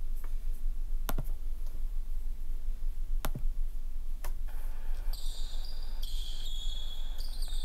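Three sharp mouse clicks over a steady low hum; about five seconds in, the basketball game's audio comes in with high squeaks of sneakers on a hardwood court.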